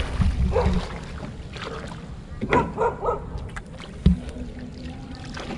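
Shallow water splashing and sloshing as a person wades and pushes a long-handled shrimp push net through it, with a sharp knock about four seconds in.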